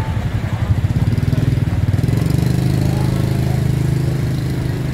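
Engine idling close by with a fast, even throb. About two seconds in, a steadier hum joins it and it gets a little louder.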